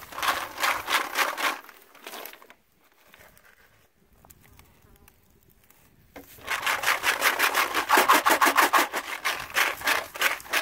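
Dry gravel and sand scraping and rattling inside the metal box of a hand-held Golden Retriever drywasher as it is shaken hard in quick, even strokes to work the material over its riffles. The shaking stops about two seconds in, leaving it nearly quiet for a few seconds, and starts again, faster, about six seconds in.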